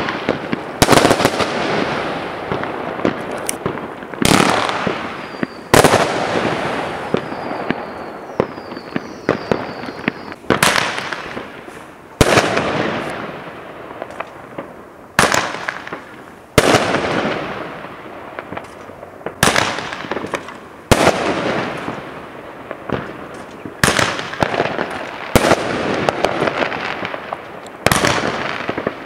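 Aerial fireworks bursting in a steady sequence, a sharp bang every one to three seconds, each fading off in an echoing tail. A few faint high whistles come about a third of the way through.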